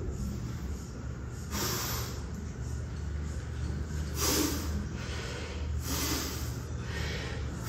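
Three short, forceful breaths pushed out through the nose, one with each one-arm kettlebell snatch, over a steady low hum.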